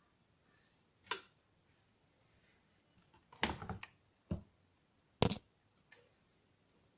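A handful of separate sharp clicks and knocks, a cluster of them in the middle, with no machine running in between.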